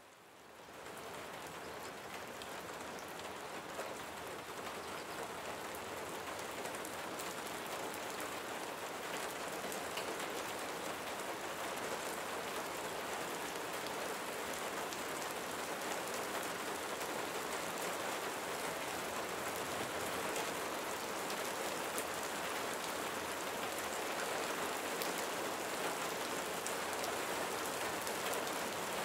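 Steady rain falling, an even hiss scattered with the ticks of single drops; it fades in over the first second or two, then holds steady.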